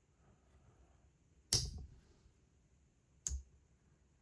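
Two sharp clicks about two seconds apart, the first a little longer than the second: a slip-joint Case Barlow pocket knife's blade snapping open and shut on its backspring.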